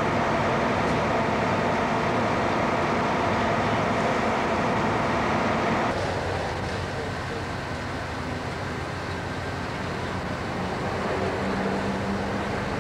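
A parked fire engine's motor running steadily, a constant drone with several steady tones, over outdoor street noise. About six seconds in, the sound drops abruptly to quieter, even street noise.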